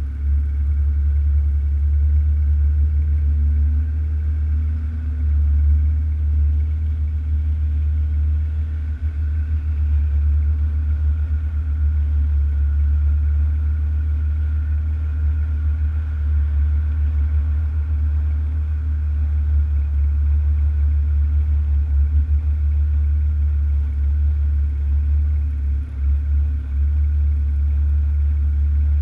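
Alfa Romeo GTV6's Busso V6 idling, heard at the exhaust as a steady low note.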